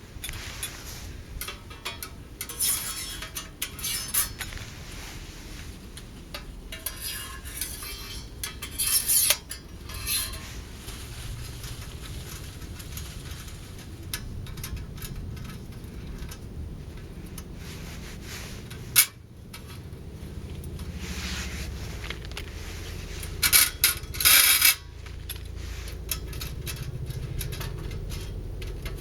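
Metal parts of a flat-pack stainless steel fire stand clinking and knocking as they are handled, in several separate bursts of sharp clinks, the loudest about 9 s and 24 s in.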